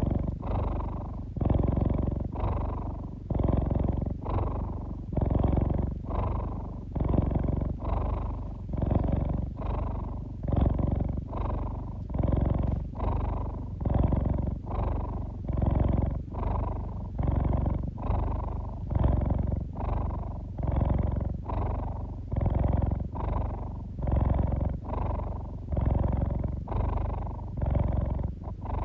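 Domestic cat purring close to the microphone, a low rumble that swells and fades in an even rhythm a little more than once a second.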